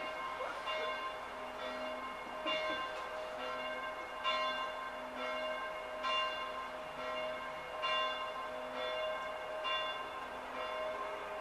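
Bells ringing, struck about once a second, each stroke ringing on under the next so that several pitches overlap.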